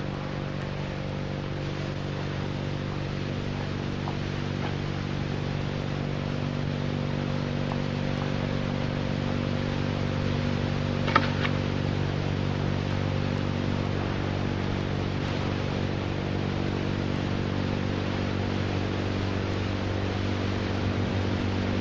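A steady low drone of several held tones, slowly growing a little louder, with one brief short sound about eleven seconds in.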